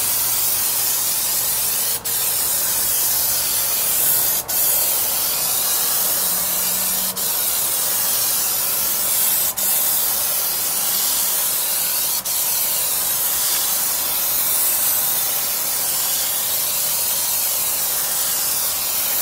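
Aerosol can of Plasti Dip rubber coating spraying in long, steady hissing passes as a heavy third coat goes onto a car grille, with a few very short breaks in the spray.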